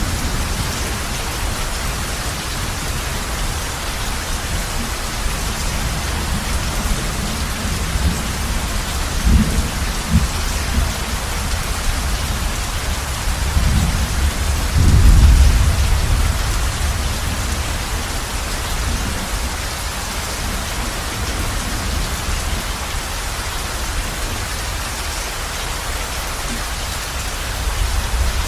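Heavy rain falling steadily on a roof, with thunder rumbling low twice: briefly about nine seconds in, then louder and longer around the middle.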